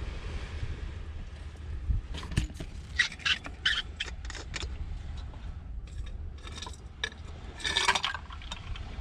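Small objects being handled: a quick run of clicks and clinks a couple of seconds in, then a longer rustling scrape near the end, over a steady low rumble of wind.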